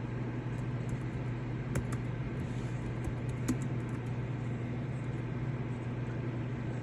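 A few scattered keystrokes on a computer keyboard over a steady low hum.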